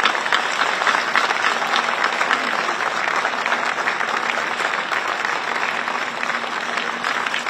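Audience applauding: many hands clapping steadily, easing off slightly near the end.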